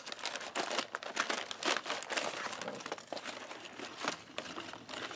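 Paper ration bag and the wrapped packets inside it crinkling and rustling as hands pull the items out, in quick irregular rustles.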